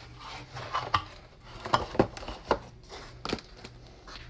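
Handling noise on a phone held up to film: about half a dozen sharp clicks and knocks as fingers shift their grip and the phone is repositioned.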